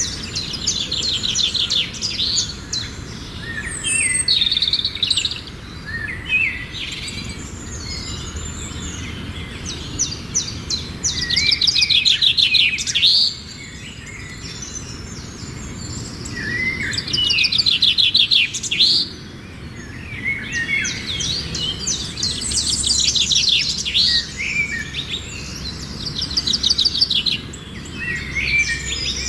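Songbird song: rapid, high trills and chirps in phrases of a few seconds, with short pauses between them.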